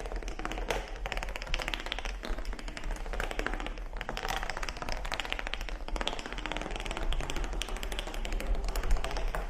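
Rapid, irregular clicking and tapping, many clicks a second, over a steady low hum.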